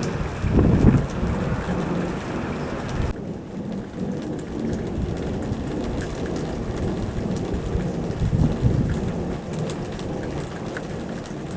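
Distant power-plant steam release (cogeneration plant venting steam), heard as a continuous low rumbling noise that swells about a second in and again near the end. The higher hiss above it thins out about three seconds in.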